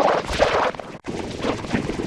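A sneeze run through heavy stacked audio effects, chopped into uneven repeating bursts, with an abrupt cut about a second in.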